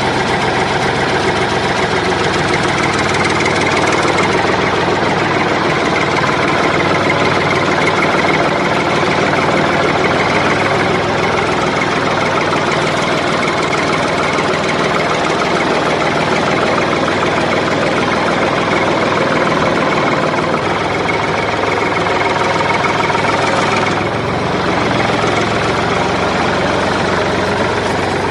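Tractor engine idling steadily with a knocking chug, changing slightly about 24 seconds in.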